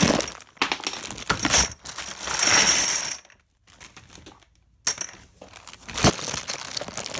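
Plastic dominoes clattering into a plastic bin as they are tipped out of their bag: a run of sharp clacks building to a rush of clatter about two seconds in, then a short lull and a few single clacks.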